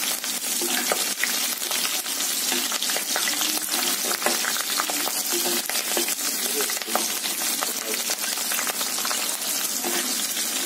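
Hot oil sizzling as slit green chillies and ginger-garlic paste fry in a metal kadai, with a perforated metal spoon scraping and clicking against the pan as it stirs.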